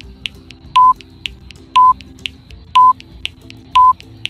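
Countdown timer sound effect: a short electronic beep once a second, with a fainter tick halfway between each pair of beeps, marking off the seconds of a countdown.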